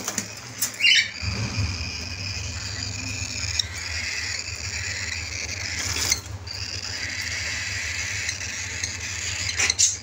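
A cage of cockatiels keeping up a steady, shrill chatter of squawks while feeding, with a quick rising chirp about a second in and a few brief flutters of wings. A low hum comes in about a second in and stays.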